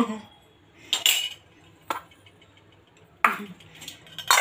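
Spoon clinking against a bowl a few separate times, about a second apart.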